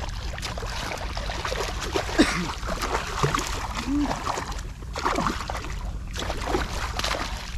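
A hooked yellowtail amberjack (hiramasa) thrashing and splashing at the surface beside a kayak, in irregular splashes over a steady rumble of wind on the microphone.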